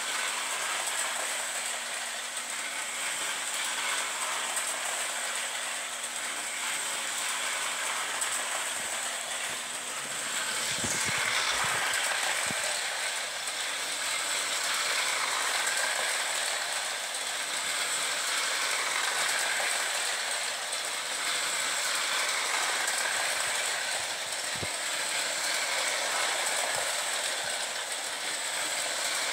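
Lionel O gauge toy freight train running laps on tubular three-rail track: a steady whir and rattle of the motor and the metal wheels on the rails, swelling a little as it circles, over a steady high whine.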